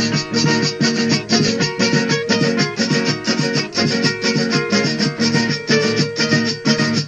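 Instrumental passage of Andean huayno music led by plucked strings, played in a quick, even rhythm, from a cassette tape transfer with dull, muted highs.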